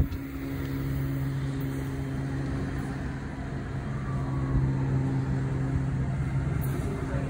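An Alstom Citadis Spirit light-rail train pulling into a station platform, with a steady low electric hum and the rumble of its wheels on the rails. There is a sharp knock right at the start.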